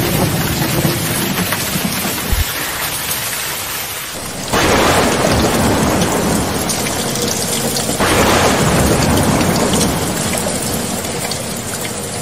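Thunderstorm: steady heavy rain, with thunder breaking in suddenly about four and a half seconds in and again at about eight seconds, each clap rolling on and slowly fading.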